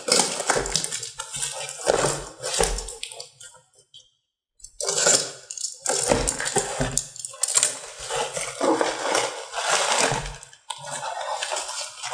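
Parcel being opened with a box cutter: the blade scraping and slicing through the plastic mailer, with bursts of crinkling and rustling as the plastic, cardboard and bubble wrap are pulled about. There is a brief pause about four seconds in.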